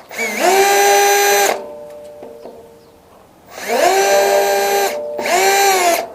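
Electric drill-driver backing out hinge screws: three runs of the motor whine, each rising as it spins up, holding steady, then falling away, the second and third close together.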